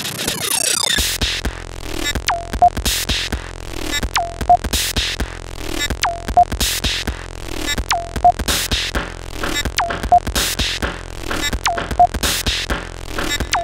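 Electronic music with a steady beat and a falling tone that sweeps down and repeats about every two seconds.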